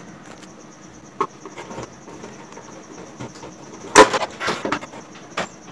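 Pliers and the photocopier's plastic document-feeder cover clicking and knocking as a stuck, broken screw lock is gripped, with one sharp crack about four seconds in followed by a few lighter clicks.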